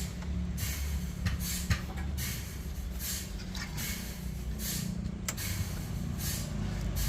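Sawmill machinery running with a steady low hum, broken by short hissing bursts that repeat about once or twice a second.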